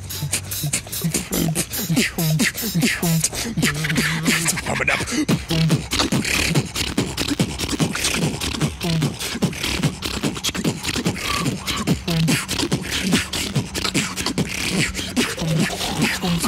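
Live vocal beatboxing: a fast, dense run of mouth-made kicks, snares and hi-hat clicks, with short low bass notes recurring throughout.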